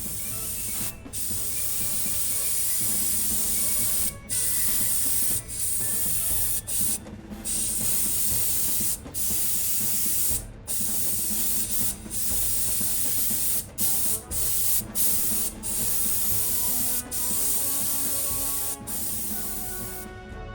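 Spray paint hissing in a string of bursts of a second or two, with brief pauses between them, as the parts of a diecast toy model are sprayed.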